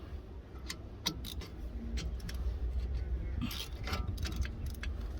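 Scattered light metallic clicks and clinks of hand tools being picked up and handled, with a cluster about three and a half seconds in, over a low rumble.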